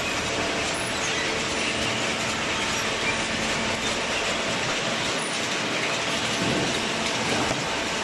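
Steel chain-and-slat infeed conveyor of a cardboard baler running, a steady mechanical clatter of chain and plates.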